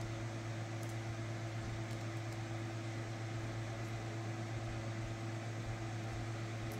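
Steady low machine hum with a constant hiss, unchanging throughout, and a few faint light ticks.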